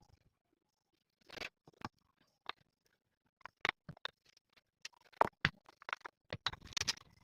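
Kitchen utensils and dishes clicking and scraping in scattered short strokes, coming thicker and faster in the last two seconds.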